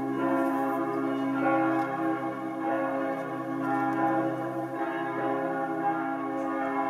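Church bells ringing: several bell tones overlapping, each struck note ringing on for seconds while new strikes come in.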